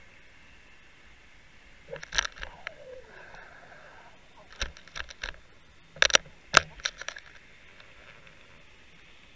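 Sharp clicks and knocks picked up underwater by a camera on a fluke rig as it bounces over a sandy bottom. They come in three clusters, about two seconds in, around five seconds, and a louder run at six to seven seconds, over a steady hiss.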